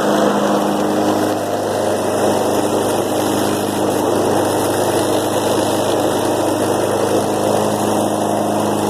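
2007 Snapper self-propelled lawn mower engine running steadily at an even pitch, after a cold start at 19 °F.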